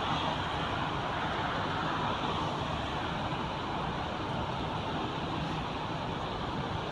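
Steady road traffic noise, an even wash with no single vehicle standing out.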